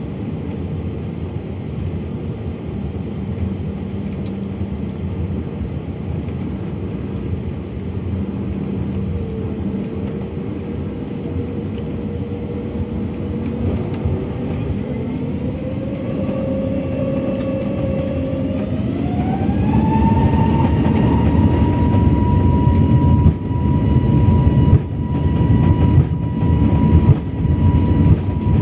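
Airbus A321neo's CFM LEAP-1A turbofan engines heard from inside the cabin: a steady hum at low thrust, then a whine that rises in pitch over several seconds about halfway through as the engines spool up to takeoff power. The whine then holds high and steady while a rough rumble grows louder with the takeoff roll.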